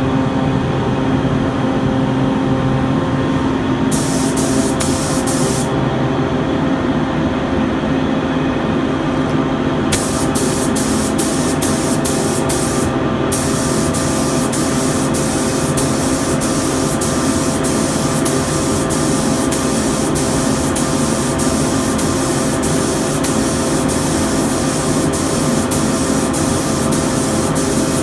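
A top-fed (gravity-feed) spray gun with a 1.3 tip hisses as it lays down clear coat. It sprays in short bursts about four seconds in, then a string of quick pulls around ten seconds, then almost without a break, with regular pulses, from about halfway. Under it the spray-booth exhaust fan runs steadily with a loud, even hum.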